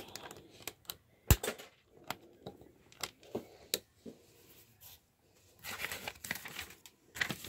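Plastic Lego bricks clicking and tapping as they are pressed onto a small build on a wooden tabletop, with one sharp click about a second in. Rustling handling noise near the end.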